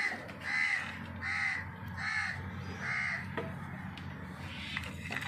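A crow cawing five times in a row, about one call every 0.8 seconds, over a steady low hum.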